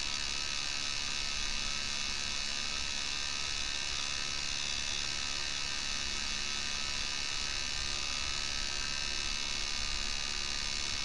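Steady electrical buzz from a D. C. Johnson FAC-1 lambda control unit pulsing its K-Jetronic bypass frequency valve, under closed-loop control from a simulated oxygen-sensor signal.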